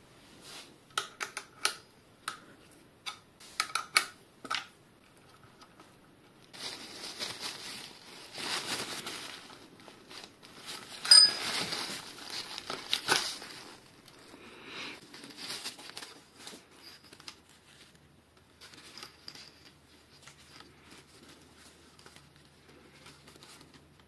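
Hands working with bicycle brake parts and tools: a run of small sharp clicks and taps, then a longer stretch of rustling and scraping with one loud click in the middle, trailing off to faint rustles.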